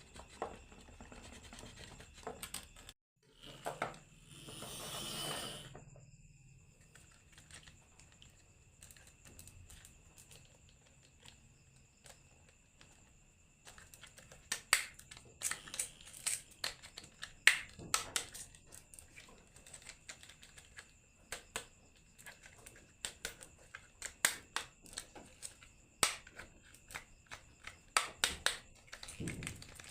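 Marbles clicking and clacking down a wooden HABA marble run, with sparse hits at first and a quick run of clicks in the second half. A brief rushing rattle comes about four to six seconds in.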